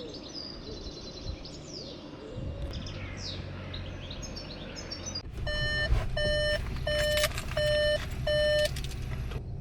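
Birds chirping, then an electronic beeper sounding five even beeps about a second apart, like an alarm going off, over a steady low rumble.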